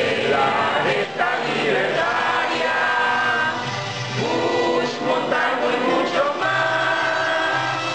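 Many voices singing a song together over instrumental accompaniment, with long held notes.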